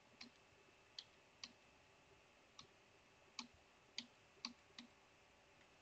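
Faint, irregular keystrokes on a computer keyboard, about eight separate clicks, as a command is typed.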